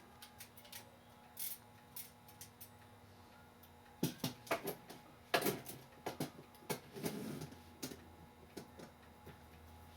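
Irregular small metallic clicks and taps of a clock movement being handled and fitted together, the brass plates, arbors and verge knocking as they are worked into place. The clicks are sparse at first, then come louder and closer together over about four seconds in the middle before thinning out again.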